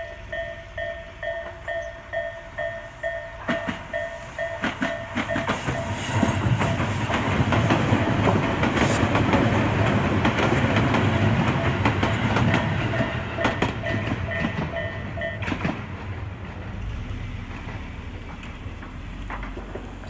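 Japanese level-crossing warning bell ringing in a steady repeating ding while an electric commuter train passes over the crossing, its wheels clattering over the rail joints. The bell stops about fifteen seconds in, and the train's rumble fades away after it.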